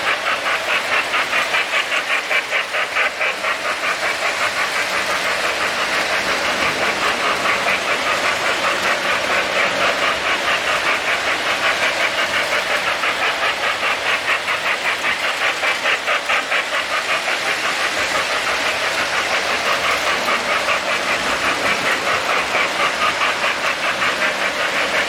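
Three-rail electric model trains running on the layout, their wheels and motors making a steady, rapid clicking clatter on the track.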